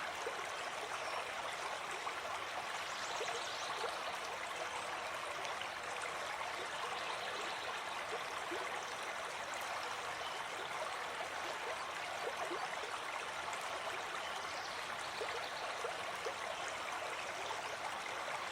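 A shallow forest river running over stones, a steady babbling rush with small gurgles and splashes throughout.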